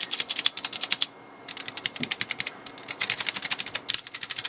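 Mechanical keyboard keys typed hard and fast on a Zen split ortholinear keyboard, rapid clicking keystrokes in three quick bursts with short pauses between.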